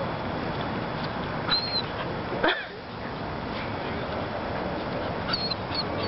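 Terrier dog on a lead whining in short, high-pitched whimpers: one about a second and a half in and a few more near the end, over steady background noise.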